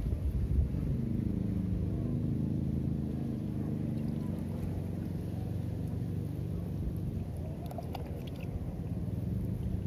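A motor engine running steadily, with a few short clicks about eight seconds in.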